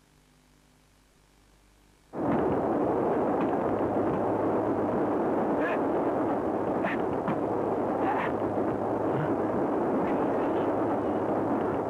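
Near silence with a faint hum, then about two seconds in a moving train's running noise cuts in suddenly: a loud, steady rushing with a few sharp clicks scattered through it.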